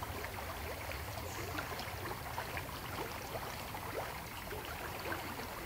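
Forest stream babbling and trickling steadily, with many small splashing ticks over a low rumble.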